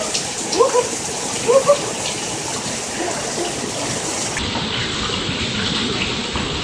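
Heavy rain pouring steadily, with a man's short whooping yells, three of them, in the first two seconds.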